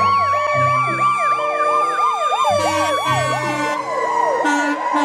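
Ambulance siren wailing fast, its pitch sweeping up and down about three times a second over a steady high tone, with music notes stepping underneath.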